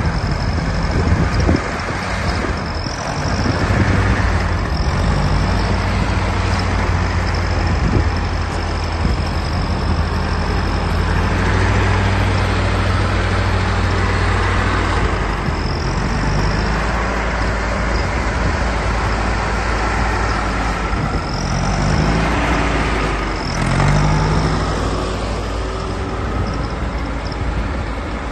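Nuffield Universal tractor's petrol/TVO engine running steadily as the tractor is driven, with the revs briefly rising a few times near the end.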